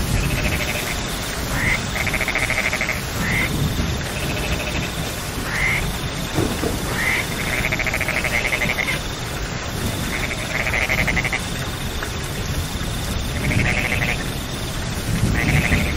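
Steady rain with frogs calling over it: a pulsed trill every couple of seconds, with short rising chirps in between.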